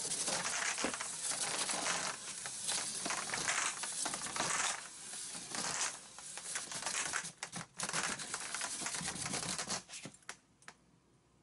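New plastic water service line being pulled through a cored hole in the foundation wall, rubbing and scraping irregularly against the hole's edge and the plastic-faced wall insulation with a crinkly rustle. It cuts off abruptly near the end.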